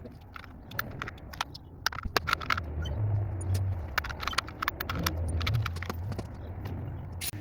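Loose metal screws clicking and clinking irregularly as they are handled and sorted. A low engine hum comes in underneath from about two and a half seconds in.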